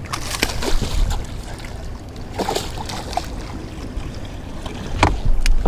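A hooked smallmouth bass splashing at the surface beside a boat, over a steady rush of wind and water. The sharper splashes come near the start and again about five seconds in.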